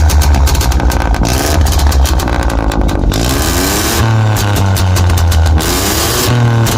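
Straight-piped, decatted exhaust of a BMW F20's 1.5 L B38 turbo three-cylinder, revved up several times, with rapid crackling pops and bangs as the throttle is let off.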